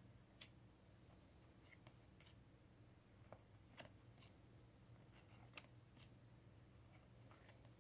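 Quiet flicks and light slaps of paper baseball cards (2021 Topps) being slid off a hand-held stack and dropped one after another onto a pile on a wooden desk, about one or two a second, over a faint low hum.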